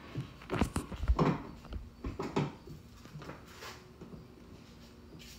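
Tail lamp lens assembly being pulled out and handled against the car's rear panel: a run of knocks and clatters in the first two and a half seconds, loudest about a second in, then a few softer knocks.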